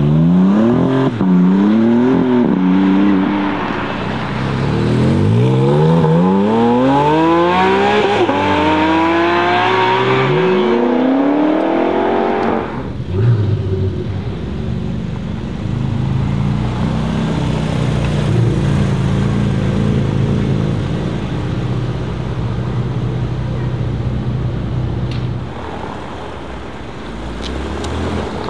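Porsche 718 Cayman GT4 RS's 4.0-litre naturally aspirated flat-six accelerating hard, its note climbing in pitch and dropping at each upshift several times, then cutting off suddenly about twelve seconds in. A steady, lower engine drone follows, and near the end the pitch starts to climb again.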